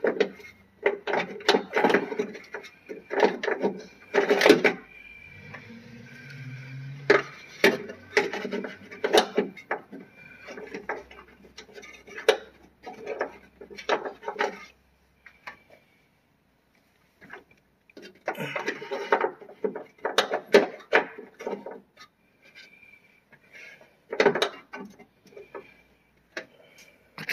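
Irregular clicks, knocks and rattles in bursts with short pauses: a replacement trunk lock cylinder and its metal hardware being handled and worked into place in a Honda Civic trunk lid.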